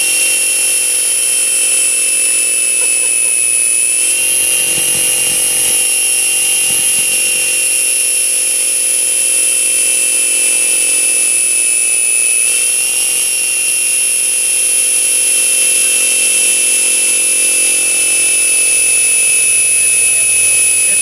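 Traxxas Stampede VXL's brushless motor and drivetrain running flat out in a burnout, the rear wheel spinning in place on concrete: a loud, steady high-pitched whine. Its pitch rises a little twice and sags slowly in between.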